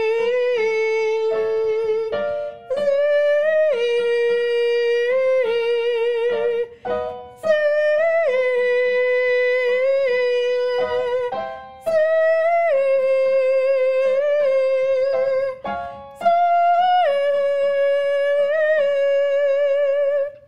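A woman's voice singing a vocal warm-up exercise on "zee", holding long notes with vibrato, over piano. The pattern repeats about every four to five seconds, with short breaks where the piano sets the next key.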